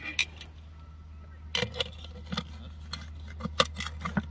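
Steel tongs clinking and scraping on the charcoal-covered lid of a cast-iron Dutch oven: a few sharp metallic clicks, a cluster about a second and a half in and more toward the end, over a steady low hum.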